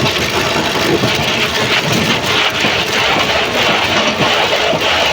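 A woodworking machine running steadily, a loud dense hiss-like machine noise with faint irregular crackle through it.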